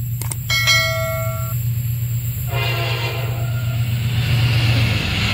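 Diesel locomotive hauling a passenger train sounds its horn for about a second halfway through, over a steady low engine drone, then the rumble and rail noise of the approaching train build and grow louder.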